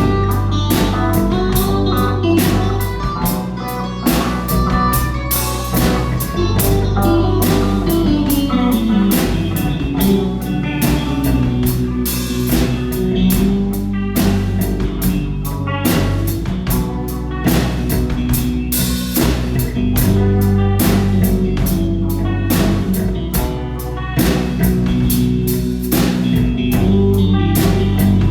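A rock band playing a song together: a drum kit keeping a steady beat under guitar.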